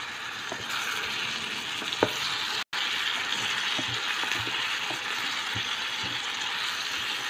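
Vegetables and textured vegetable protein sizzling in a small electric skillet as they are stir-fried with a plastic spatula, with light scrapes and taps of the spatula against the pan. The sizzle cuts out for an instant a little under three seconds in.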